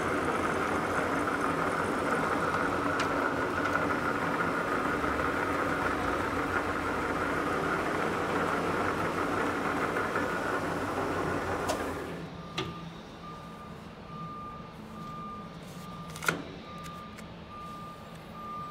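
Machinery running steadily with a whine and a hum, which dies away after a click about twelve seconds in. Then a short high electronic beep repeats evenly, about one and a half times a second, and a single sharp click comes about four seconds later.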